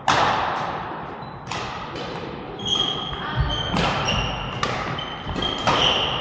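Badminton rally: rackets strike the shuttlecock about once a second, each hit a sharp crack ringing off the hall, with short high squeaks of court shoes between the hits.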